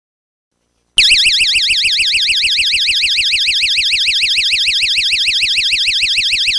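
Built-in siren of a DNI6003 'Vigia Criança' magnetic door and window alarm sounding: a loud, high-pitched, fast warble that starts abruptly about a second in. This is the alarm it gives when a door or window it guards is opened.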